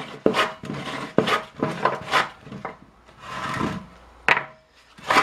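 Homemade hand croze, a wooden block carrying a few saw teeth, scraped around the inside of an oak barrel's chime in short rasping strokes about two a second, cutting the groove that will hold the barrel head. One longer stroke comes past the middle and a sharp knock near the end.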